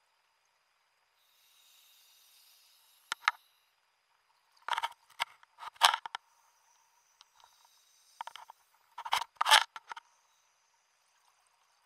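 Scuba diver breathing on an open-circuit regulator underwater: a faint hiss of inhalation, then loud bursts of bubbling exhaust, twice over.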